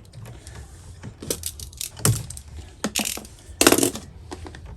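Hand tools working on electrical wire, a series of sharp clicks and snips as the excess wire ends are trimmed, with a louder short rasp about three and a half seconds in.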